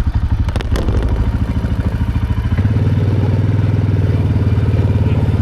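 Small vehicle engine running with a rapid, even pulse as it sets off. It gets louder and heavier about two and a half seconds in as it takes on more throttle.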